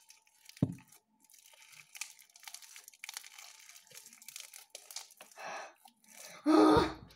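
Hands kneading and stretching a large batch of glue-and-borax slime, with sticky crackling and tearing as it pulls apart. A single thump about half a second in, and a brief loud voice sound near the end.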